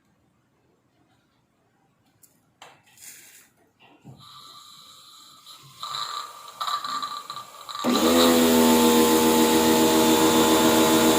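Washing machine starting up: a few clicks, then a faint hum that builds, and about eight seconds in a loud motor sound rises briefly in pitch and settles into a steady whine.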